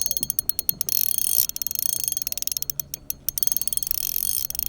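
Shimano Vanquish spinning reel being cranked to bring in a hooked fish, its gears giving a fast, even ticking.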